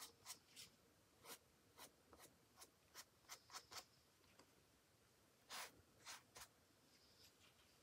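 Short, dry scratchy strokes of a small bristle brush scrubbing across paper, coming at irregular intervals, with a louder pair a little past the middle.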